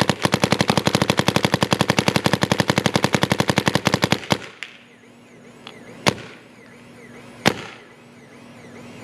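Planet Eclipse Etek electropneumatic paintball marker firing in semi-auto: a rapid string of shots, about ten a second, that stops about four seconds in, followed by two single shots.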